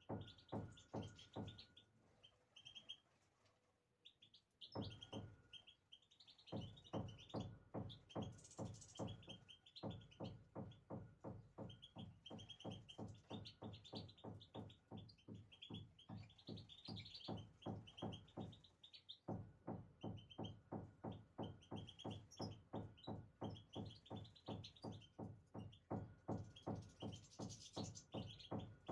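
Small songbirds chirping and twittering in short bursts. Under them runs a low rhythmic thudding at about three to four beats a second, which stops for a few seconds near the start and again briefly midway.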